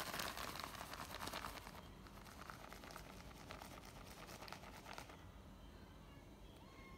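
Crinkly rustling noise, thick with small crackles, for about five seconds, then dropping away; a faint short kitten mew near the end.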